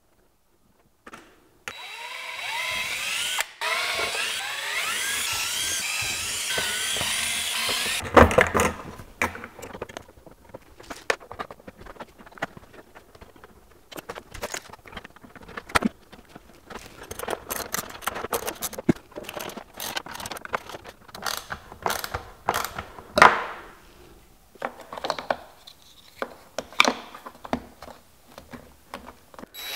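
Cordless drill running for about six seconds, drilling into the hard plastic case with a wavering, squealing cut. Then a long stretch of scattered clicks, knocks and rattles as parts and screws are handled and fitted.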